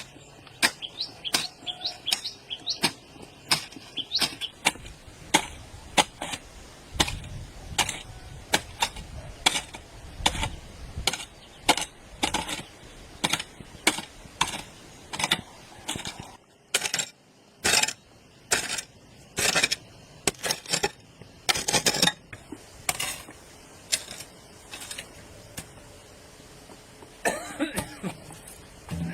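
Repeated sharp knocks from hand-tool work, roughly one or two a second, with a few longer strokes about two-thirds of the way through. Birds chirp faintly in the first few seconds.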